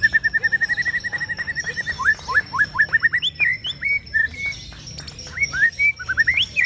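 White-rumped shama singing: a fast run of short repeated notes for about two seconds, then a string of quick rising whistles.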